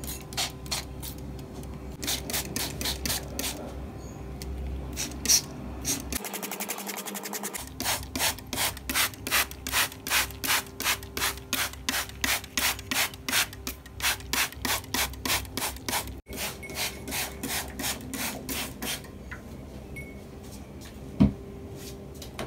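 Handheld trigger spray bottle misting houseplants: runs of quick hissing squirts, two or three a second. A single sharp knock near the end.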